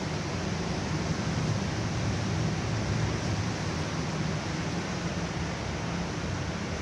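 Cyclone storm noise: a steady, unbroken rush of wind and heavy rain.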